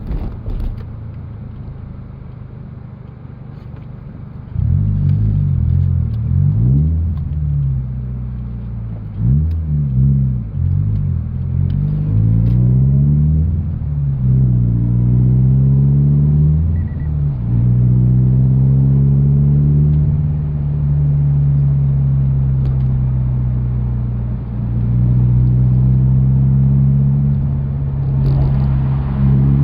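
Toyota 86's flat-four boxer engine heard from inside the cabin through a BE FREE aftermarket exhaust with its silencer fitted. It runs quietly at first. From about four seconds in it gets louder, and the revs rise and fall back several times, then settle into steadier, louder running for the rest of the stretch.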